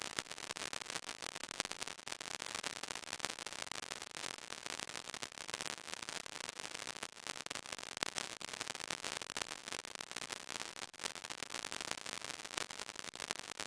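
Dense, irregular crackle of gamma detection pulses from a small sodium iodide scintillation detector, counting a weakly radioactive thoriated tungsten welding rod at about 180 counts a second.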